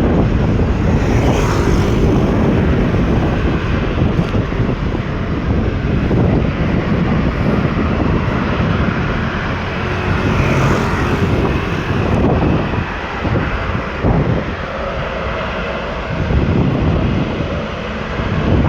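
Airliner jet engine noise, loud and steady, with wind buffeting the microphone; it eases somewhat in the second half.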